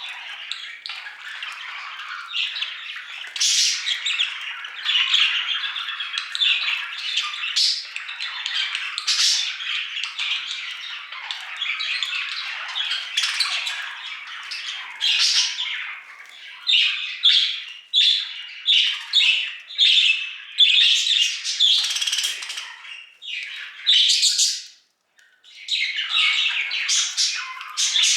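Budgerigars chattering and warbling without pause, mixed with sharp squawks that grow louder and more frequent in the second half, then stop for a brief break a few seconds before the end.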